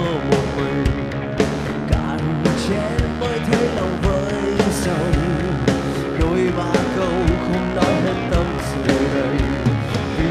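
Rock band playing live through an instrumental passage, with a steady drum beat under pitched instrument lines.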